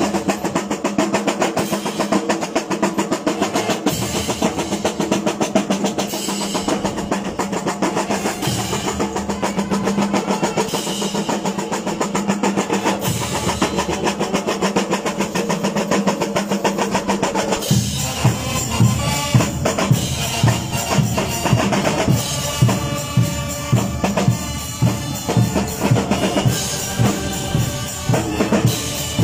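Marching band drum line playing: snare drums in fast rolls and rapid patterns, with cymbal crashes. About two-thirds of the way through, bass drums come in with a heavy, regular beat under the snares.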